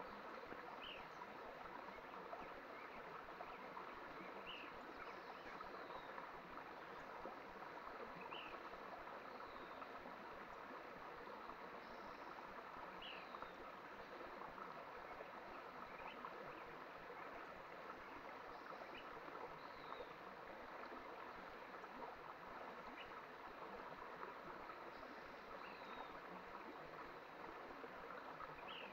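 Mountain stream flowing, a soft, steady rush of water over rocks. Faint short high calls come every three to four seconds over it.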